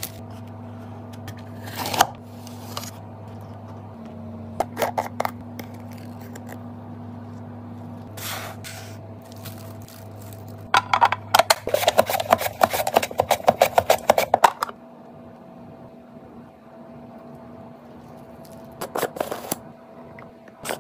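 Hands preparing food on a wooden cutting board: scattered taps and scrapes, with a dense run of crackly scraping for a few seconds past the middle, over a steady low hum.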